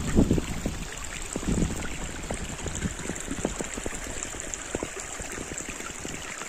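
Shallow mountain stream running and burbling over stones and rocks, a steady rush of water.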